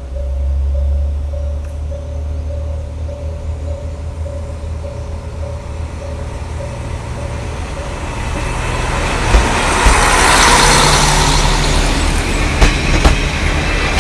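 KiHa 40-series diesel railcar approaching, its diesel engine giving a low rumble. The sound grows louder from about eight seconds in, with paired clicks of the wheels over rail joints. A regular pulsing tone sounds underneath in the first half.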